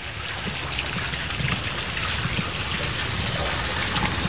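Steady rushing noise without distinct events or pitch, heaviest in the low end.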